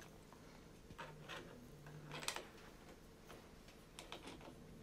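Faint small plastic clicks and ticks as a phone clamp holder is screwed onto the arm of an overhead camera mount, about half a dozen in all, the loudest a little over two seconds in.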